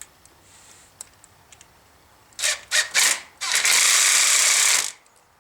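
Tool tightening a hose clamp onto a high-temperature hose over the EGR tube: a few short clicking strokes about two and a half seconds in, then a continuous run of about a second and a half that stops abruptly.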